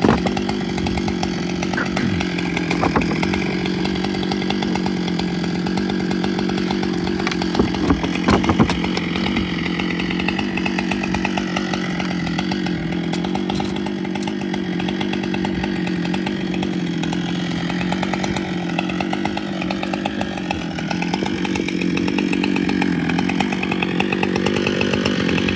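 Large-displacement Husqvarna chainsaw engine idling steadily, with no revving, and a few sharp knocks about eight seconds in.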